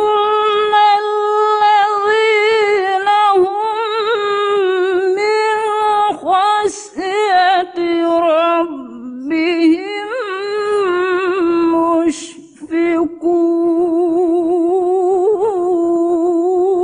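A woman reciting the Quran in the melodic tilawah style, holding long, high, ornamented notes with rapid wavering turns. There is a brief pause about three-quarters of the way through.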